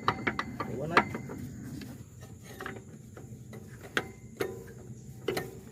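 A few scattered light clicks and knocks of hand tools on metal during work in a car's engine bay, several close together at first, then single ones spaced about half a second to a second apart.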